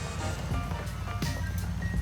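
Background music: short held notes over a steady bass and beat.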